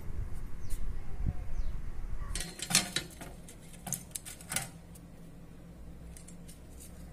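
Wind buffeting the microphone as low rumble, then a thin metal blade scraping and prying dried rice-and-sago fryums off a stainless steel plate. This gives a few sharp scrapes and clicks, the loudest about two and a half seconds in.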